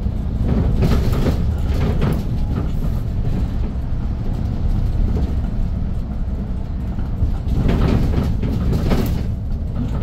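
Cabin sound of a Hyundai New Super Aerocity city bus under way: its CNG engine running and a steady low road rumble, rising to louder stretches about a second in and near the end.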